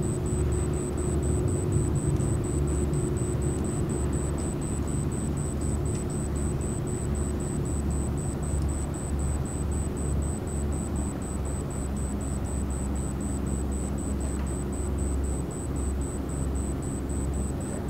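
Steady low engine rumble with a few held hums from the large car ferry Ferry Rokko as it leaves port. A faint high ticking repeats about three times a second over it.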